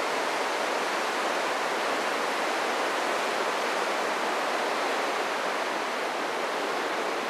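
Tidal water rushing and churning steadily through a narrow rock gorge, a constant white-water rush with no breaks.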